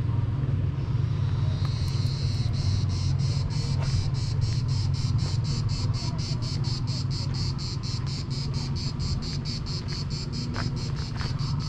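A cicada starts singing about a second and a half in. Its song is a rapid, even, high-pitched pulsing of about four to five pulses a second, over a steady low rumble.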